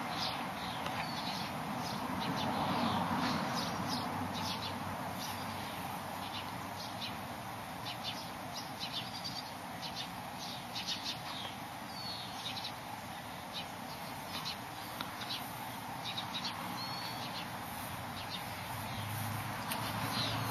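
Small birds chirping, many short, irregular chirps over a steady background noise.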